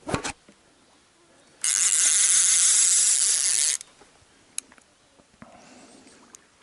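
Fishing reel's drag buzzing steadily for about two seconds as a hooked lake sturgeon takes line, starting and cutting off abruptly. A brief knock about a tenth of a second in.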